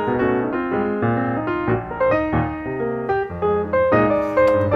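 Background piano music, a run of notes played at a steady level.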